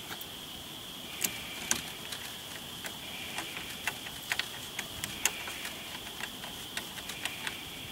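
Hand screwdriver turning a screw into the RV screen door's metal frame: a run of irregular sharp clicks and ticks, some louder than others.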